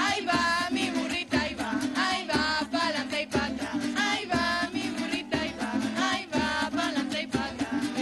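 Eastern Venezuelan folk music (diversión oriental) played live: women singing over a strummed guitar and a smaller strummed string instrument, with a steady beat about once a second.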